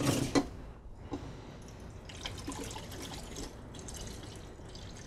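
Diluted Rodinal developer pouring from a plastic bottle into a Paterson film developing tank, a steady trickle starting about two seconds in.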